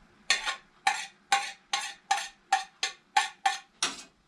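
A kitchen utensil knocking against a bowl or dish in quick regular strokes, about three a second, each stroke with a short ring, as food is mixed.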